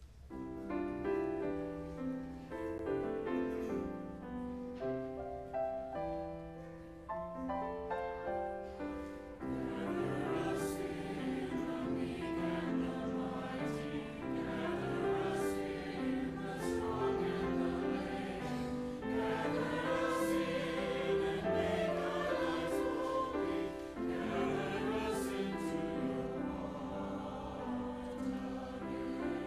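Church choir singing an anthem with piano accompaniment. The choir comes in about nine seconds in, after a short instrumental introduction of held chords.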